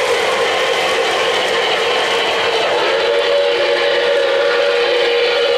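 O-gauge model trains running on three-rail track: a steady running sound with a held tone and no breaks.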